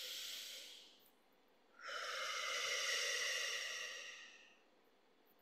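A woman's audible breathing: a short breath in through the nose, then about two seconds in a long breath out through the mouth lasting nearly three seconds, as in slow relaxation breathing.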